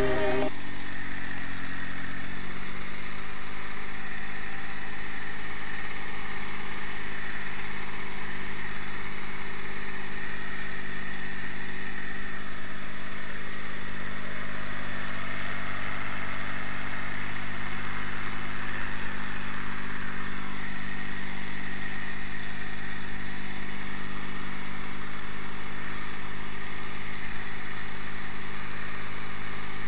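Turbocharged Ursus tractor's diesel engine running steadily under heavy load while pulling a plough.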